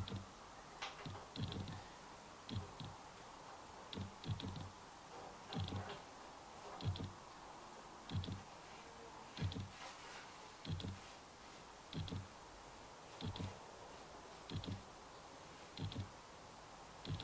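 Regular clicks, about one every second and a bit, each a short low knock with a sharp tick, as greased bottom bracket cups are threaded into a mountain bike frame by hand.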